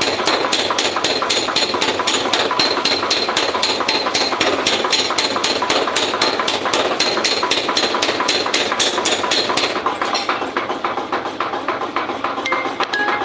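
Hammer striking metal in a quick, steady rhythm, about four blows a second, with a metallic ring. The blows grow fainter about ten seconds in.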